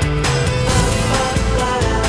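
Pop-rock band recording playing an instrumental passage, with a steady drum beat under bass and sustained chords.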